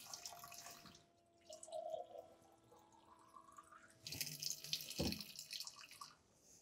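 Water running from a kitchen faucet into a small glass sample container at a sink, in two short runs: one at the start and a longer one about four seconds in. Between them there is a faint rising tone, and there is a single knock about five seconds in.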